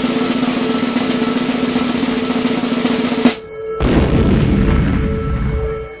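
Music with a continuous drum roll; it breaks off about three seconds in and comes back with a heavier, deeper beat.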